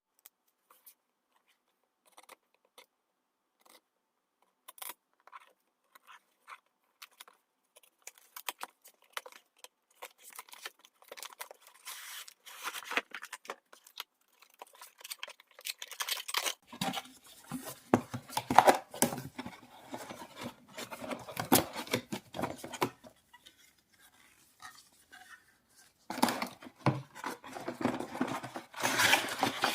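Hands handling objects in a small room: scattered clicks and light scraping at first, then busier rustling, scraping and tearing sounds with knocks, loudest about two-thirds of the way through and again near the end.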